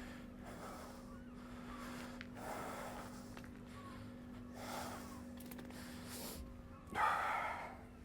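A man breathing hard from exertion: a few loud, breathy exhalations, the strongest about seven seconds in, over a steady low hum.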